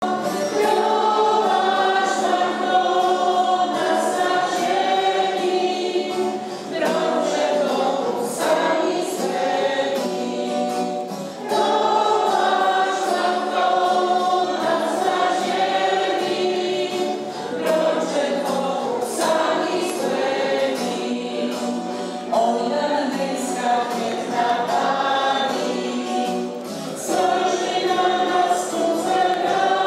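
A choir singing in long held phrases of several seconds, with short pauses between them.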